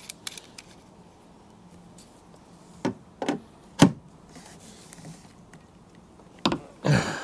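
Metal clicks and knocks of a hand-lever riv nut tool being worked on a riv nut in a van's sheet-steel pillar: a few light clicks at the start, three sharper knocks about three to four seconds in, and two more near the end.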